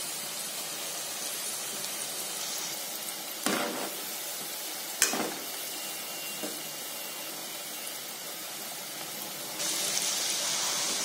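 Cabbage manchurian balls deep-frying in hot oil in a kadai, a steady sizzle. Two sharp knocks come about three and a half and five seconds in, and the hiss grows louder near the end.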